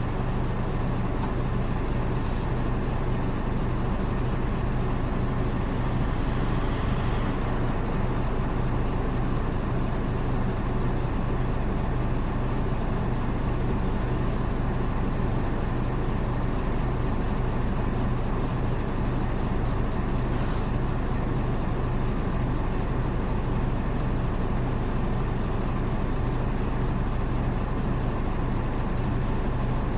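Diesel engine of a Hino PKG-RA274MAN city bus running at a steady note, heard from inside the cabin. Its engine sound is one the recordist finds unlike that of other buses of the same type.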